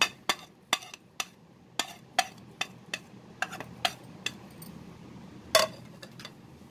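Light clinks of a utensil tapping against a steel mixing bowl: about a dozen quick, irregular taps, with one louder clink about five and a half seconds in.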